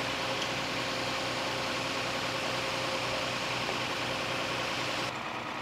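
Concrete mixer truck running steadily with its drum turning as it discharges concrete down the chute: an even hiss over a low engine hum. The hiss drops away about five seconds in.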